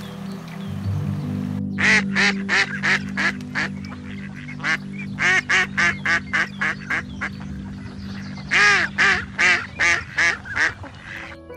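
Mallard duck quacking in three runs of rapid, loud quacks, about three a second, over background music with steady low tones.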